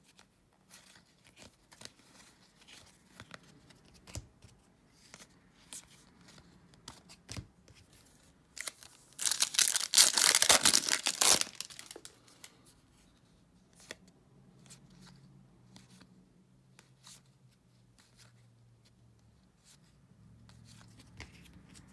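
A foil trading-card pack wrapper is torn open and crinkled, loud for about three seconds some nine seconds in. Before and after it come faint clicks and shuffles of cards being handled.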